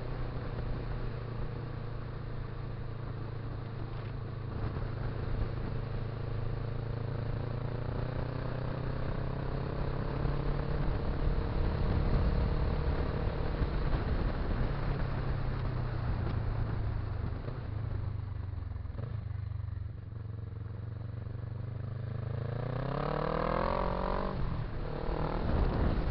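Motorcycle engine running at a steady cruise, heard from the bike carrying the microphone. It eases off about three-quarters of the way through, then revs up in a rising pitch near the end as it accelerates.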